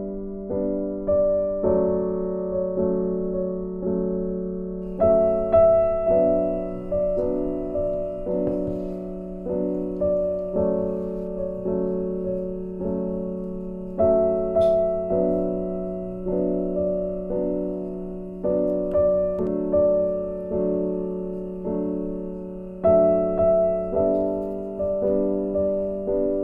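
Background piano music: a slow, gentle melody of single struck notes, each one fading before the next, with a stronger accented note every nine seconds or so.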